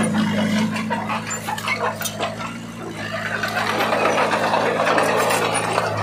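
Komatsu D20P crawler bulldozer's diesel engine running steadily under load, with clanking from its steel tracks. From about halfway there is a gritty rush of soil and rock being pushed by the blade.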